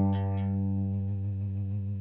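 Clean electric guitar, a Made in Mexico Fender Stratocaster with Porter Vintage Custom single-coil pickups: the last strummed chord rings on and slowly fades away.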